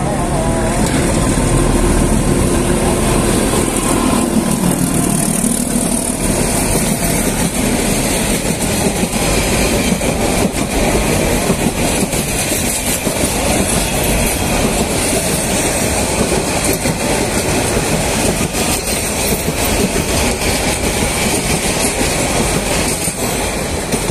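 Diesel-hauled passenger train passing close by: the locomotive's engine is heard in the first few seconds as it draws level, then a long string of coaches rolls past with wheels clacking over the rail joints. The sound eases slightly near the end as the last coach goes by.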